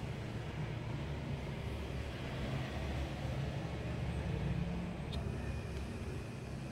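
A steady low background rumble, with one faint short click about five seconds in.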